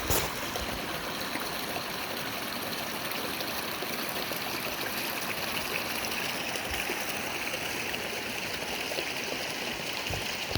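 Creek water running steadily, a close, even rush with trickling. A single short knock at the very start.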